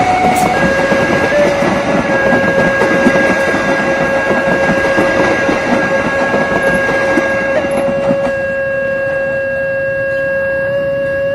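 Railway level-crossing alarm sounding one steady, unbroken tone, which the title calls alarm trouble: a faulty crossing alarm. Under it the coaches of a passing passenger train rattle over the rails. The train noise fades at about eight seconds, leaving the alarm tone on its own.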